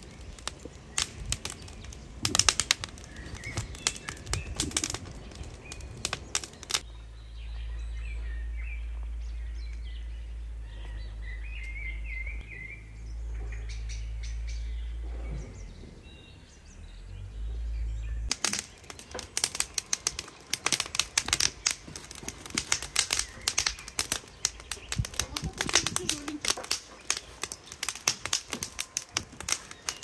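Dense crackling and popping from saj cooking over an open wood fire. For about ten seconds in the middle, this gives way to a low wind rumble on the microphone, with birds chirping over it.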